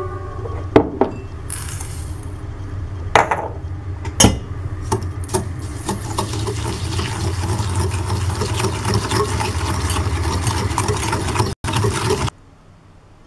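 Wire balloon whisk beating egg yolks and brown sugar in a glass bowl, its wires clinking quickly and continuously against the glass from about four seconds in until it stops abruptly near the end. A few single sharp clinks come before the whisking starts, and a steady low hum runs underneath.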